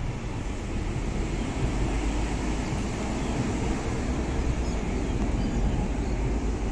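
Steady outdoor city noise: traffic on the street mixed with wind buffeting the microphone, heaviest at the low end, with no single sound standing out.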